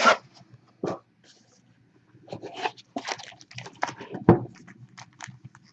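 Trading-card boxes and their wrapping being handled and opened: scraping, crunching and crinkling, with a click about a second in and a loud thump about four seconds in.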